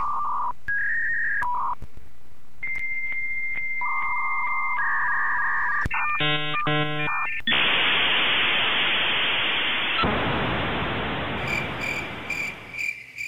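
Dial-up modem connection sound effect: a series of steady beeping tones at different pitches, a short burst of rapidly alternating tones, then several seconds of loud hissing static. Regularly pulsing cricket chirps start near the end.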